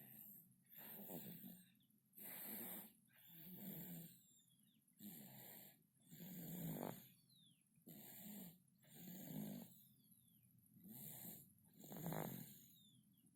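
A sleeping baby snoring softly, about ten snoring breaths at an even pace, one every second or so.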